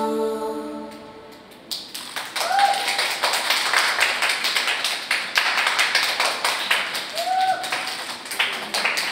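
Held, sung vocal music fading out, then a small audience applauding, with two short cheers over the clapping.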